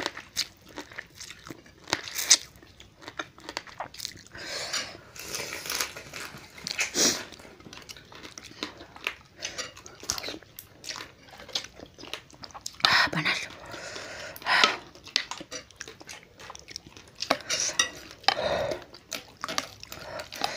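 Close-up eating sounds from two people eating spicy crab noodle soup: chewing and crunching, sucking meat from crab shells, and spoons and forks clinking against ceramic bowls.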